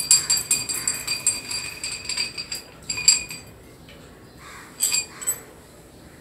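Metal dumbbell parts clinking and ringing against each other as they are handled: rapid clinks with a ringing tone for about three seconds, a sharper strike, then a few more clinks near the end.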